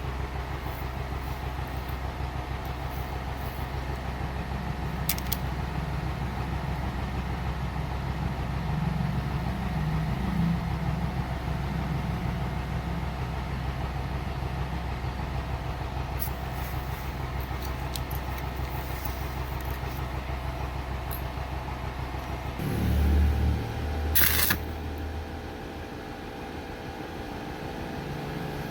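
Stick welding: a steady low hum with a fine, continuous crackle. About 23 seconds in there is a louder low surge, and a brief sharp hiss comes just after it.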